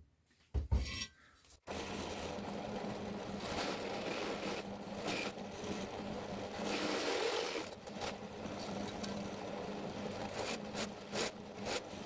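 A bench drill press running steadily, its tapered bit cutting into a patterned metal cutlery handle lubricated with cutting oil, with a rasping scrape over the motor's hum. It is tapering out a small pre-drilled hole so a ball bearing will seat in it. A short knock comes just before the drilling starts, under two seconds in.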